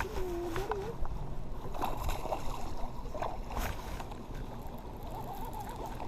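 Water sloshing and gurgling against a fishing boat's hull over a steady rush of wind, with a few light knocks and clicks.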